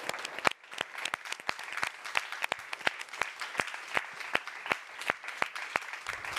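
Applause from a small seated audience, with individual hand claps standing out sharply at an even pace of about three a second over the general clapping.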